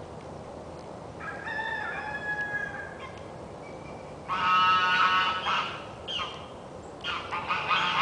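A rooster crowing, a drawn-out call about a second in, followed by louder, repeated farmyard fowl calls from about four seconds in and again near the end.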